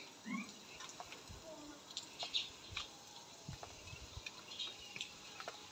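Quiet ambience of small birds chirping now and then, with scattered light clicks and a few soft low knocks.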